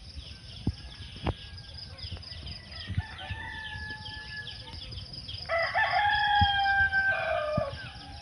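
Roosters crowing: a fainter crow about three seconds in, then a louder, longer one that drops in pitch as it ends.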